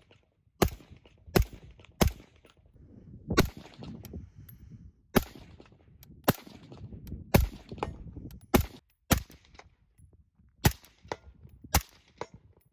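Suppressed AR-15-style rifles firing single shots, about a dozen at an unhurried, uneven pace of roughly one a second, each report followed by a short echo. The rifles are fired in turn through HUXWRX Flow 7.62 Ti, HUXWRX Flow 5.56K and Otter Creek Labs Polonium suppressors.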